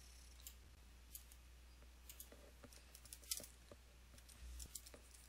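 Faint, irregular clicks from a computer mouse and keyboard during copying and pasting, about one or two a second, over a faint steady low hum.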